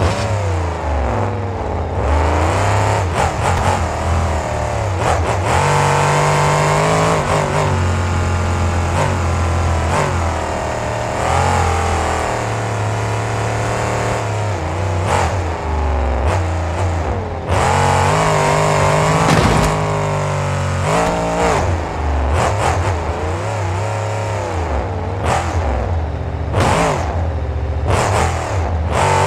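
Monster truck engine running hard and revving, its pitch rising and falling repeatedly, with a few sharp bangs now and then and several close together near the end.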